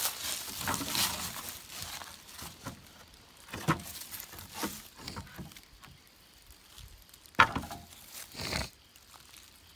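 Scattered knocks and rustles of hands handling weathered wooden boards, with one sharp knock about seven and a half seconds in.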